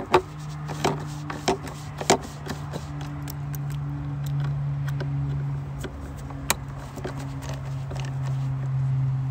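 Light metallic clicks and taps of a T25 Torx driver unscrewing the two screws that hold a BMW E90's mass airflow sensor, most of them in the first couple of seconds with one sharp click about six and a half seconds in. A steady low hum runs underneath and grows a little louder near the end.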